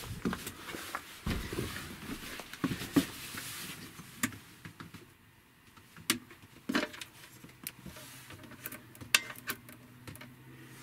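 Handling noise: footsteps and knocks for the first few seconds, then scattered light clicks and taps as multimeter test leads are handled against the inverter's terminals. A faint steady low hum comes in near the end.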